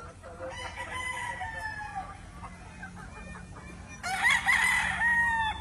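Gamefowl roosters crowing twice: a fainter, slowly falling crow about half a second in, then a louder crow about four seconds in.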